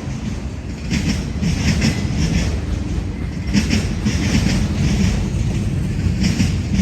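Freight cars of a CSX manifest train rolling past, their wheels clicking over rail joints in clusters every second or two over a steady low rumble.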